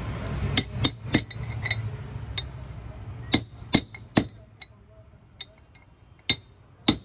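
Metal bar striking a socket used as a drift, lightly tapping the cone into a steering rack housing: about a dozen sharp metallic clinks with a short ring, a few in quick succession, then more spaced out.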